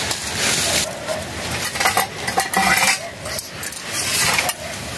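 Metal kitchen utensils clinking and knocking against each other and against metal dishes, in a few sharp clinks about two seconds in and again near the end.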